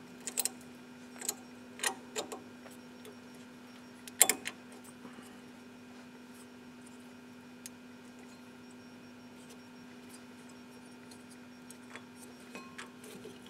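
Sharp metallic clicks and taps of a thin steel pad-guide clip being pressed and snapped into place on a brake caliper carrier, the loudest about four seconds in and a few faint ticks near the end, over a steady low hum.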